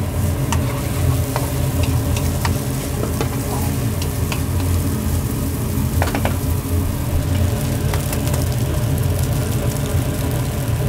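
Mie goreng noodles sizzling as they are stir-fried in a hot pan, with scattered sharp clicks and scrapes of the cooking utensil against the metal, over a steady low rumble.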